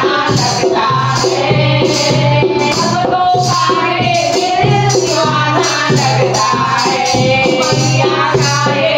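Women's voices singing a Hindi devotional bhajan together, accompanied by a dholak hand drum and hand-held rattling clappers keeping a steady beat.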